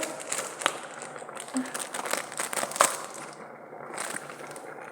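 Kitchen handling sounds: crinkling and rustling with a couple of sharp clicks, as the boiled chicken pieces are worked apart.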